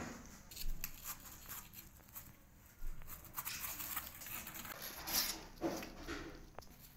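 Kittens moving about on a lap: irregular scratchy rustling of claws and paws on fabric, with small clicks.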